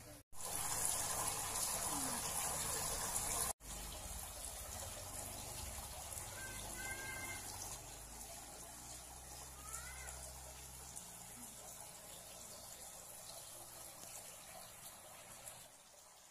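Steady rushing hiss like running water. It is loudest for the first three seconds, between two abrupt cuts, then continues more faintly with a low hum and a couple of faint short chirps.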